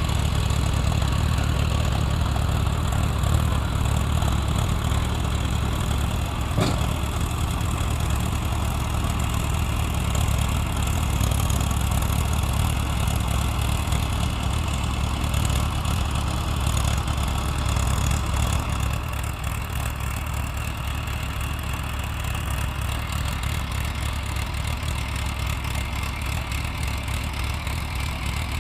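Tractor engine running steadily, easing slightly about two-thirds of the way through.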